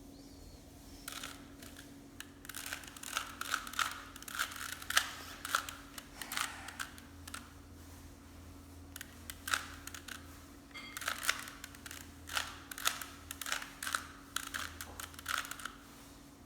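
Plastic Rubik's cube being turned quickly by hand: runs of rapid clicking and clacking as the layers snap round, with a break of about a second and a half in the middle.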